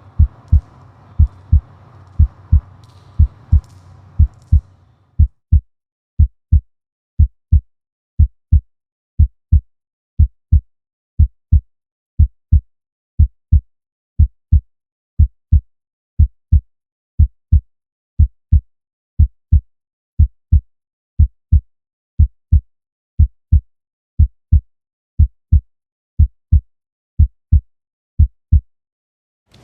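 Heartbeat sound on a performance soundtrack: low double thumps about once a second. A faint hum runs under the first five seconds, and the beats stop just before the end.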